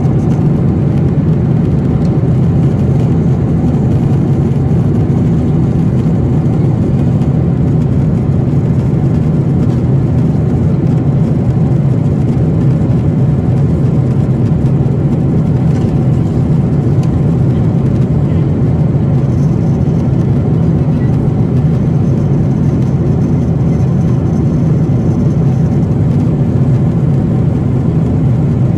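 Steady low drone of a Boeing 777-300ER's engines and airflow heard inside the passenger cabin in flight, unchanging throughout.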